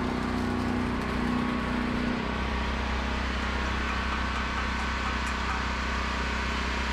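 An engine running steadily, its low hum changing note about two seconds in.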